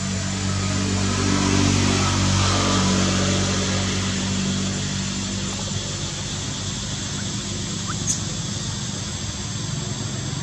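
A motor vehicle's engine running, loudest in the first few seconds and then holding steady at a lower level.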